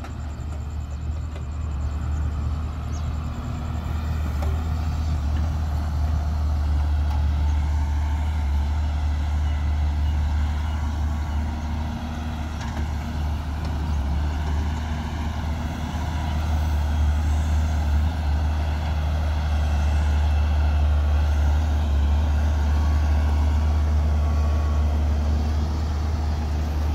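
Diesel engines of a Hyundai wheeled excavator and a dump truck running steadily with a deep low drone, the engine note swelling a little now and then as the excavator works.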